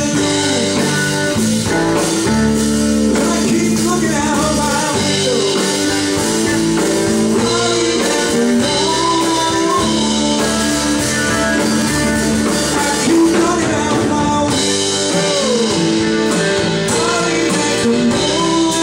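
Live blues band playing: electric guitars, bass, drum kit, piano and congas, with a lead line of bending, sliding notes over the band.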